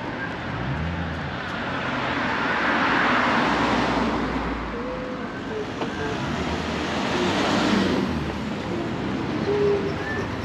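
Road traffic: two cars pass one after the other, the first peaking about three seconds in and the second near eight seconds, each swelling and then fading away.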